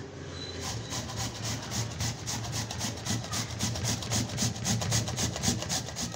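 Carrots being grated by hand on a metal box grater: a fast, regular run of scraping strokes, about five a second.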